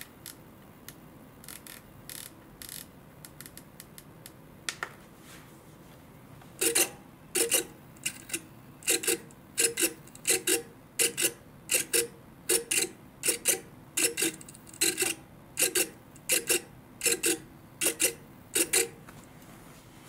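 Bluebird M15V metal-geared micro servo driving back and forth at half travel, each move a short whirring buzz, about one every 0.7 seconds from about six and a half seconds in. Only a few faint clicks come before that.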